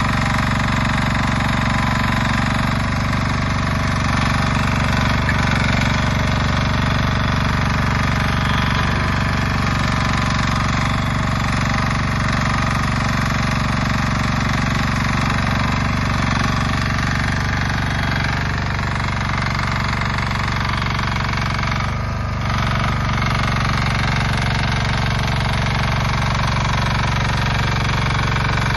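Koop diesel engine of a Rhinoceros XN 800 tracked mini dumper running steadily while the self-loading shovel scoops gravel and lifts it toward the skip. The sound dips briefly about 22 seconds in.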